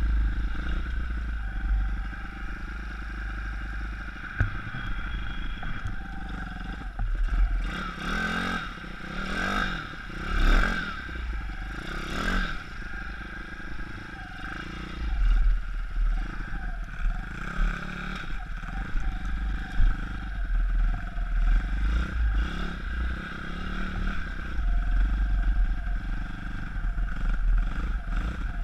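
YX 160cc four-stroke single-cylinder pit bike engine, freshly fitted and being run in, riding along a dirt trail and revving up and down in short bursts of throttle without going to high revs. Several sharp knocks come through around the middle.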